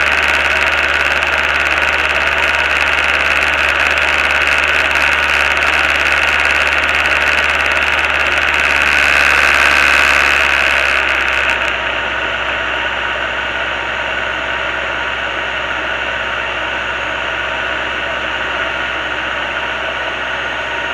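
Diamond DA20 light aircraft's piston engine and propeller running steadily in flight, heard from inside the cockpit as a loud, even drone with a hiss over it. About twelve seconds in it becomes slightly quieter and less hissy.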